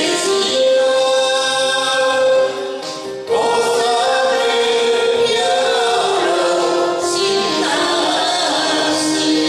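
A man and a woman singing a slow karaoke duet over a backing track, with a short break between sung phrases about two and a half seconds in.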